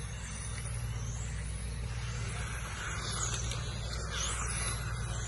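Radio-controlled touring cars running laps, their motors whining high and rising and falling in pitch as they speed up and slow down, thickest past the middle, over a steady low hum.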